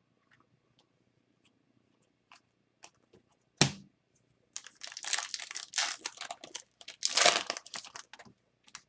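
A sharp knock, then several seconds of crinkling and tearing as a foil trading-card pack wrapper is ripped open and handled.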